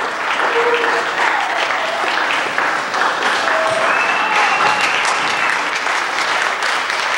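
Audience applauding for the cast's curtain call: dense, steady clapping, with a few voices calling out and whistling over it.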